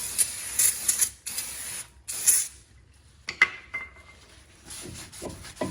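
Aerosol brake cleaner sprayed in several surging bursts onto a new brake rotor, washing off its factory oil coating; the hiss stops about two and a half seconds in. About a second later comes a single sharp metallic clink with a brief ring.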